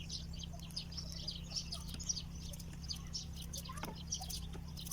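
Small birds chirping and twittering, many short quick calls scattered throughout, over a steady low hum.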